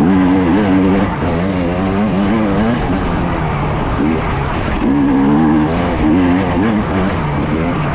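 Two-stroke enduro motorcycle engine being ridden hard over rough ground, its note rising and falling again and again as the throttle is worked on and off.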